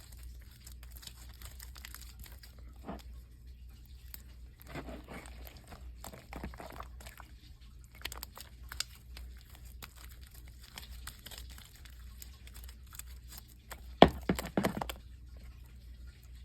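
Handling noises from slime-making materials and containers: light crinkling and scattered clicks, with a sharp knock and brief rattle about fourteen seconds in, over a low steady hum.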